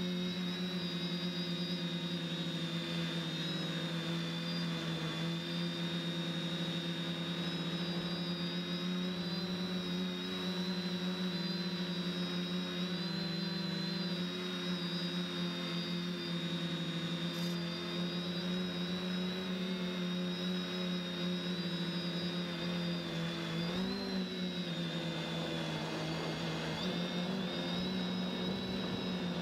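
Quadcopter's electric motors and propellers whirring steadily in hover, heard from the onboard camera, with a high whine over the hum. About 24 seconds in, the pitch briefly rises and falls as the craft moves off.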